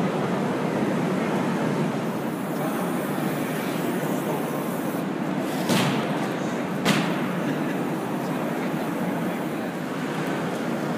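Steady background of indistinct voices and hall noise, with two sharp knocks about six and seven seconds in.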